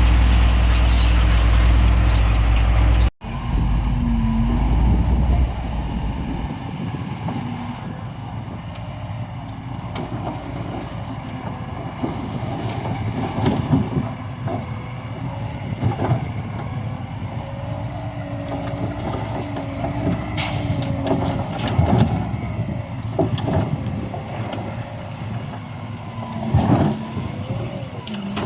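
Heavy diesel earthmoving machinery working. A loud low engine rumble cuts off abruptly about three seconds in. Then the engine runs on with a wavering whine and scattered knocks and clanks.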